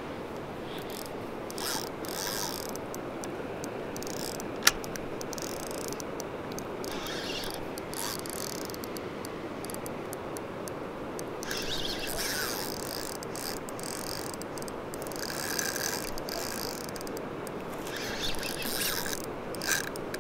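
River water rushing steadily over a gravel bed, with spinning fishing reels cranked in short spells as jigs are retrieved, and a single sharp click a little under five seconds in.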